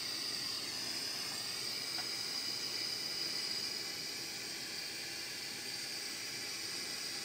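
Steady background hiss with a thin high whine running through it, plus a faint click about two seconds in as small metal parts are handled.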